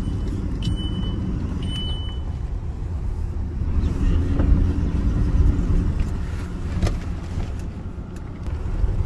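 Pickup truck driving on a rough dirt road, heard from inside the cabin as a steady low rumble of engine and tyres. Two short high beeps about a second apart come near the start, and a single click about seven seconds in.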